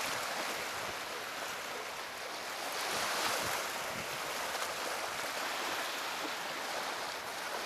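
Lake Michigan waves washing onto a sandy beach: a steady hiss of surf that swells about three seconds in.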